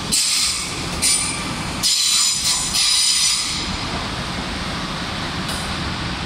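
Koleje Dolnośląskie regional train rolling slowly into the station. High-pitched metallic squeals come in short bursts during the first three and a half seconds, then give way to a steady rumble of the train moving along the platform.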